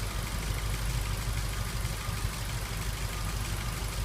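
Ford Focus 1.6 petrol four-cylinder engine idling with an uneven, faltering beat: a misfire on cylinder number 2, which the scanner links to a faulty injector.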